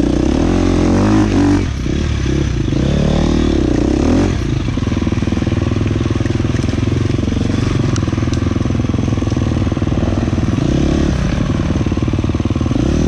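Dirt bike engine running under the rider, revving up and down through the first four seconds, then holding a steadier drone.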